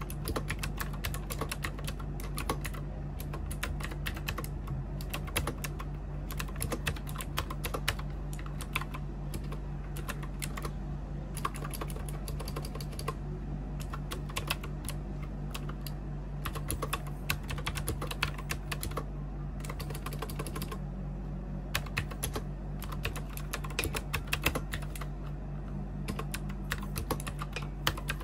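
Typing on a white retro-style keyboard with round keycaps: a quick, uneven run of key clicks that pauses briefly about halfway through and again about three quarters of the way in.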